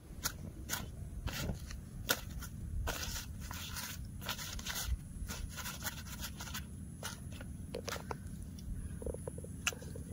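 Irregular scraping and crackling clicks as a large green leaf is pressed and handled over a small tin-can stove, over a steady low rumble.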